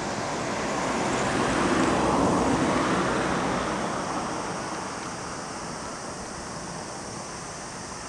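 A vehicle passing by out of sight: a broad rush of noise that rises, is loudest about two to three seconds in, and fades away by about five seconds, leaving a steady outdoor hiss.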